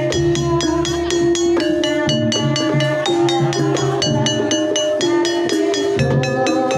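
Live Banyumasan gending for tayub dance played by a gamelan ensemble. Pitched keyed instruments strike in a steady, fast pulse of about five notes a second, and the kendang hand drum plays along underneath.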